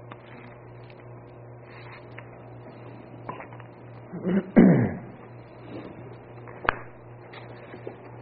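Quiet room with a steady low electrical hum, broken by small knocks and clicks as a cup and papers are handled at a lectern, with one sharp click a little before the end. About halfway through comes a short man's vocal sound that falls in pitch.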